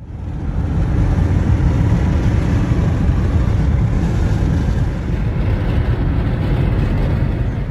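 Loud, steady rumbling noise inside a car's cabin, heaviest in the low end with a hiss above it, easing off slightly near the end.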